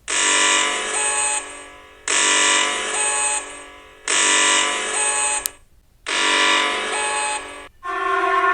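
An electronic alarm buzzer sounding four long, harsh blasts about two seconds apart. Near the end a different, steadier alarm tone takes over.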